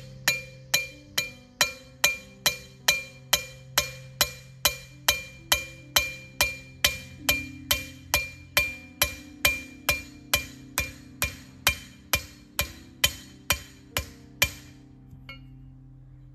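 A hammer repeatedly striking a metal trellis ground anchor, driving it into the ground with a ringing clink at each blow. The strikes come at an even pace of nearly three a second and stop shortly before the end. Background music plays underneath.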